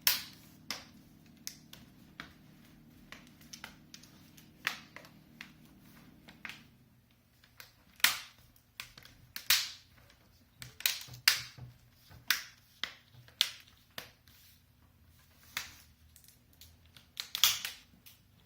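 Plastic bezel clips on an MSI GS40 laptop's screen lid snapping into place one after another as the bezel is pressed on around the edge: a string of sharp, irregular clicks, some much louder than others.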